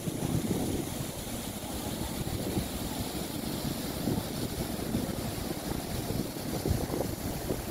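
Steady low rumble of outdoor city background noise, uneven and fluttering, with no clear single source.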